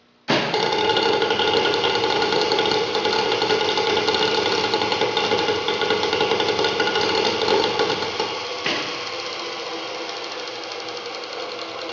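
Prototype Roberts rotary engine rig switched on at raised power, starting abruptly and running with a loud, steady mechanical whir of several steady tones. About nine seconds in there is a click and it drops to a quieter, steady run.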